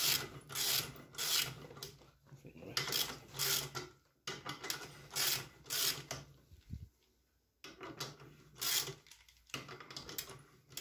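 Metal-on-metal rasping of a screw-type valve spring compressor being wound on a Honda K20A2 cylinder head, in quick strokes about two a second. The strokes break off about four seconds in and come back in a few shorter runs. A low steady hum runs underneath and stops about six and a half seconds in.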